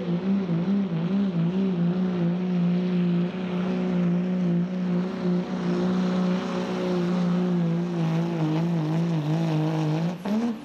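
Second-generation Dodge Ram's Cummins diesel engine running hard at steady high revs under the heavy load of a pulling sled, its pitch wavering as the load shifts. Near the end the revs flare up briefly and then fall away as the pull ends and the throttle is let off.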